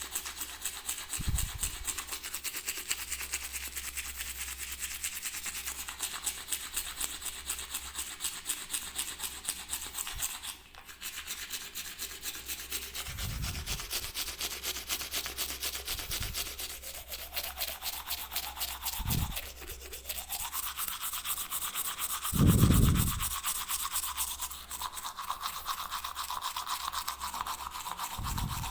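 Toothbrush bristles scrubbing in fast, even strokes, with a short break about ten seconds in. A few dull low thumps come through now and then, the loudest about three-quarters of the way through.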